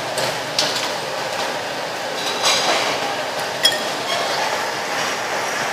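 Steady rushing background noise at a busy noodle stall, with a few sharp clinks and knocks of crockery and utensils.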